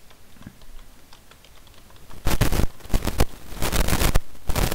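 Typing on a computer keyboard: light, quick keystrokes for the first two seconds, then several much louder knocks from about two seconds in.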